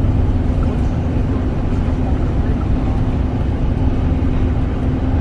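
Inside a city bus: the steady engine and road rumble of the bus running, with a low, even hum.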